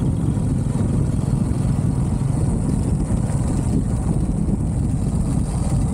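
Riding a motorcycle at speed: a steady, loud rush of wind over the camera's microphone with a low rumble underneath.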